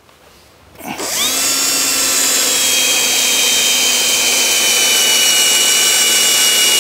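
Electric drill spinning up about a second in, then running at one steady speed with a high whine.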